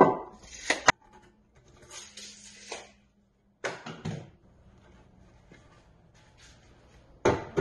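Hardwood boards knocking and clattering as they are handled and set down: a few sharp wooden knocks, with a brief scraping noise about two seconds in and quiet handling sounds between.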